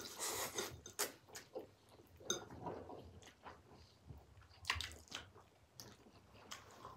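People eating spicy ramen noodles: slurping and chewing, with scattered short wet sounds and sharp little clicks.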